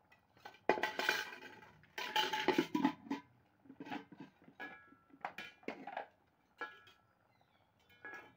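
Metal kitchen utensils clinking and clattering against a cooking pot in irregular short bursts, some with a brief ring.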